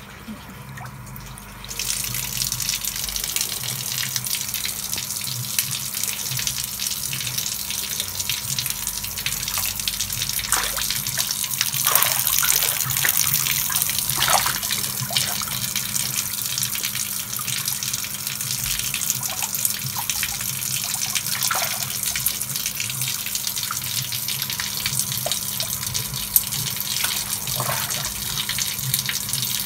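Water running and splashing steadily in a shallow, half-drained fish pond, starting abruptly about two seconds in. A few sharper splashes come in the middle, from fish thrashing and feet wading in the water.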